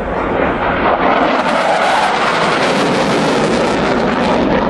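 Panavia Tornado jet passing at an air display, the roar of its twin RB199 turbofans swelling about a second in, with the high hiss strongest mid-pass and easing near the end.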